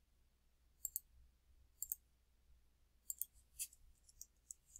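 Faint computer mouse clicks: two quick double clicks about a second apart, then a faster run of clicks and keyboard taps in the last second and a half as a dimension value is entered.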